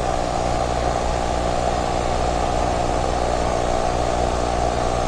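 Steady low ambient drone from a horror animation's soundtrack, a held hum of several tones without change.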